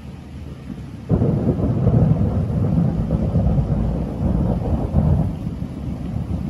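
Thunder from a nearby lightning strike: a loud, sudden clap about a second in, then a deep rumble that rolls on for several seconds.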